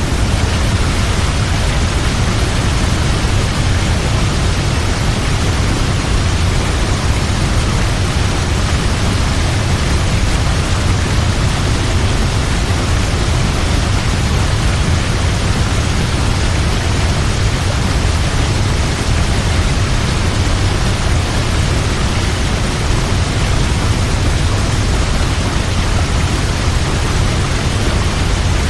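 Waterfall: a steady, dense rush of falling water with a heavy low rumble underneath, unchanging throughout.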